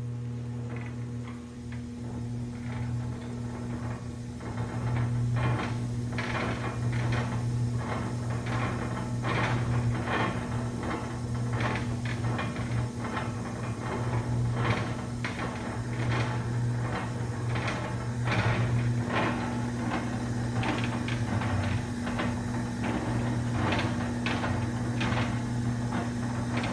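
Semi-automatic pallet stretch wrapper running, with a steady electric motor hum and frequent irregular clicks and clatter from its drive. It gets louder about five seconds in.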